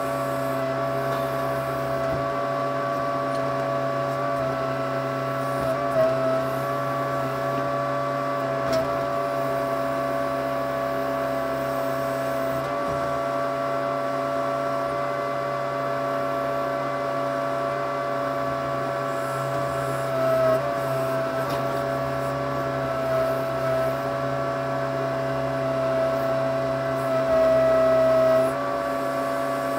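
Case 580C backhoe's engine running steadily, heard from the operator's seat as the boom and bucket are worked. It grows briefly louder a few times, longest near the end.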